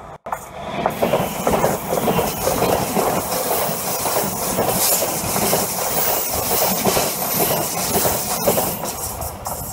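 Francilien (Z50000) electric multiple unit passing close at speed: a steady rush of wheels on the rails with clicking over the rail joints. It builds about a second in and starts to fade near the end.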